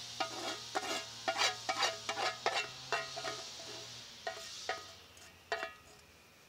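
A metal utensil scraping and tapping food out of a frying pan into an enamel bowl: a quick run of ringing clinks and scrapes that thins out after about four seconds.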